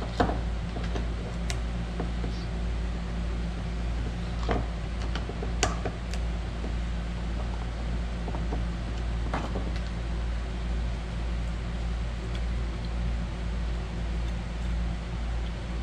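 Steady low mechanical hum, like a running fan, with a few scattered light clicks and taps as a small plastic switch housing is handled and opened.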